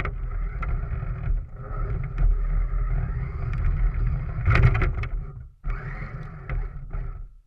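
Remote control car running, heard from a camera mounted on the car: a steady motor whine over a low rumble of wheels and chassis on the ground, with a cluster of knocks about four and a half seconds in. The sound drops out briefly near six seconds and stops abruptly at the end.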